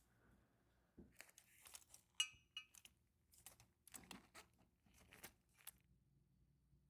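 Faint, irregular clicks and clinks of small metal carburetor parts being handled and set down, with a brief metallic ring about two seconds in.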